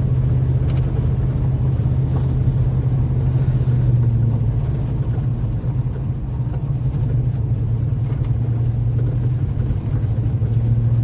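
Four-wheel-drive vehicle driving, heard from inside the cab: a steady low drone of engine and road noise, easing slightly about six seconds in.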